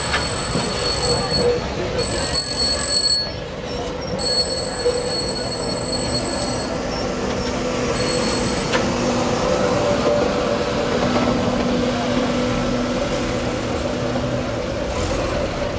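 A tram running along street track: a steady rolling rumble with a held hum running through it.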